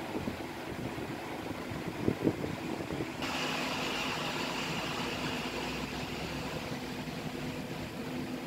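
Steady background hum and rumble like a motor or engine running, with a couple of short knocks about two seconds in. The background changes abruptly about three seconds in, and a faint high steady tone joins it for a few seconds.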